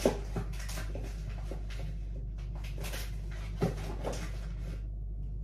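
Packaged protein bars being handled and put away out of sight, with knocks and rustling: a sharp knock at the start, rustling and small clicks through the middle, and another knock about three and a half seconds in, over a steady low hum.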